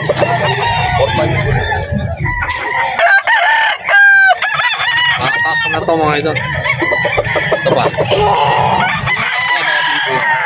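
Many gamecocks crowing over one another, with clucking between crows; one loud crow stands out about four seconds in.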